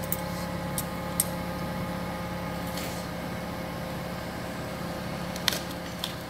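Steady electrical hum of operating-theatre equipment, with a few short clicks of metal surgical instruments near the start and again about five and a half seconds in.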